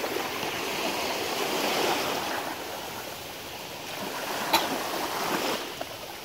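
Small sea waves washing in over the shallows, a steady rushing hiss that swells and eases. A single sharp click about four and a half seconds in.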